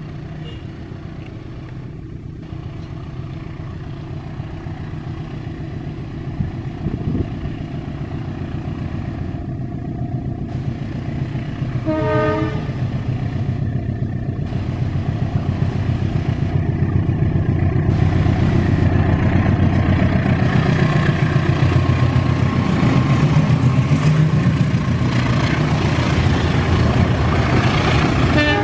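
Diesel locomotive hauling a container freight train approaching and passing: a steady low engine rumble that grows louder, with a brief pitched tone about twelve seconds in. Over the last ten seconds the clatter of wagon wheels on the rails builds as the container flats roll past.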